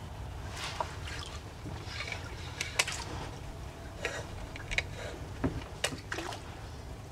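Water sloshing against a kayak's hull with a scattering of short splashes, over a low steady rumble of wind on the microphone.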